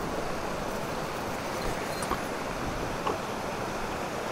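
Small forest stream cascading over mossy rocks: a steady rush of water.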